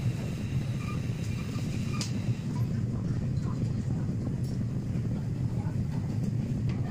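Potter's wheel spinning with a steady low rumble, with a few faint light clicks.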